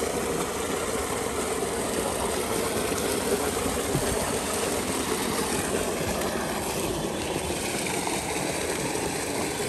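Steady engine-like drone with a faint constant hum.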